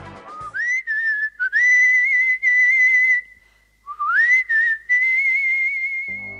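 A whistled melody in two phrases. Each phrase slides up to a long held note that wavers slightly, and there is a short pause halfway through. Instrumental music comes in near the end.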